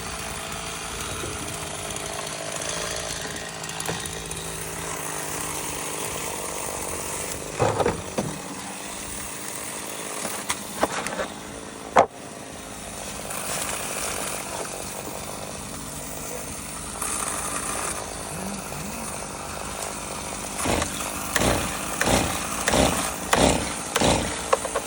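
Chainsaw running while cutting up a freshly felled tree, with a sharp knock about halfway through and a run of repeated knocks in the last few seconds.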